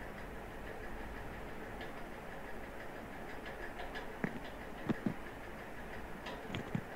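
Computer mouse clicking: a few sharp clicks starting about four seconds in, some in quick pairs like double-clicks, over a steady low hiss of room and microphone noise.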